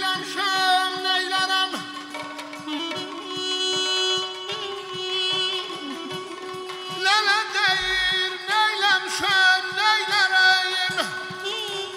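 Azerbaijani ashiq folk music: a man sings with wavering, ornamented held notes while playing the saz, over a steady drone note. The voice drops out for a few seconds in the middle, leaving the instruments, and comes back strongly about seven seconds in.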